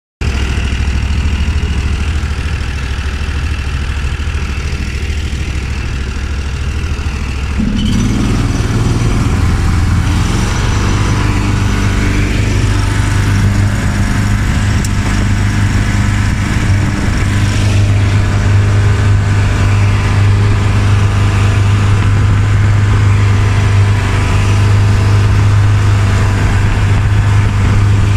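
Predator 22 hp 670cc V-twin engine on a longtail surface-drive mud motor, idling steadily, then revving up about eight seconds in and running at a steady higher speed under load as the boat gets under way.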